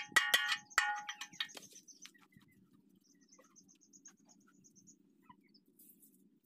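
Metal taps on a steel bushing being driven into the bore of a small diesel engine block: three sharp strikes in the first second, each ringing at the same pitch. After that only a faint low hum, with faint high chirping around the middle.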